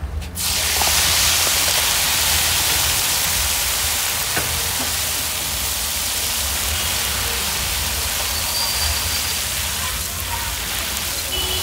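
Marinated chicken pieces going into hot oil in an iron kadai: the oil breaks into a loud sizzle about half a second in and keeps frying with a steady hiss, over a steady low hum.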